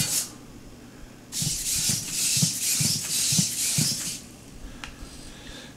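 Lynxmotion hexapod robot walking on a wooden floor: its servos and feet make a rasping, whirring noise for about three seconds, starting a little over a second in, with soft taps about twice a second as the feet come down.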